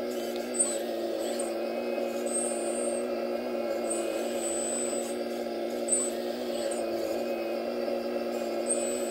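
Scale RC Kobelco excavator's drive running with a steady mechanical hum as its bucket digs into soil. A faint high whine cuts in and out every second or so, and there are a few brief knocks.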